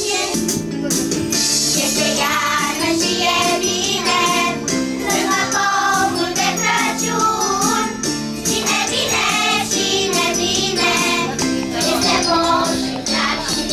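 Children's choir singing a Romanian Christmas carol (colind) together, with bells jingling along in rhythm.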